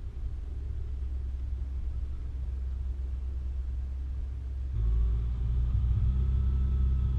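4WD vehicle driving: a steady low engine and road rumble that gets louder about five seconds in.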